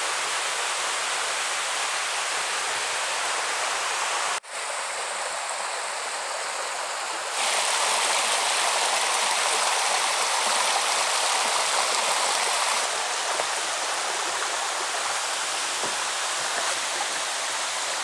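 Waterfall water rushing steadily down and over rock slabs. The rush cuts off for an instant about four and a half seconds in and gets louder about seven seconds in.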